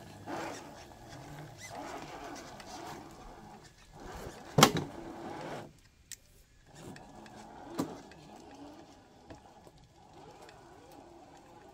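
Traxxas TRX4 Bronco RC crawler's electric motor and gears whining in surges as it crawls over rock, with one sharp knock about four and a half seconds in. The whine then fades as the truck moves away.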